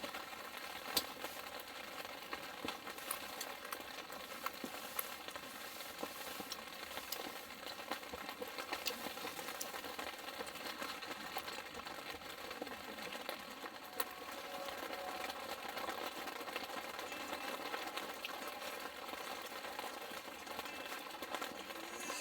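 Food sizzling in a pan over a campfire: a steady hiss with scattered small crackles and pops.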